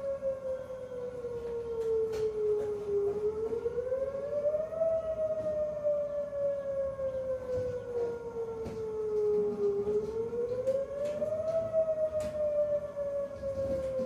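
Whelen 2906 electronic outdoor warning siren sounding its wail test tone: a slow rise and fall in pitch, each fall lasting about five seconds and each rise about two, twice over.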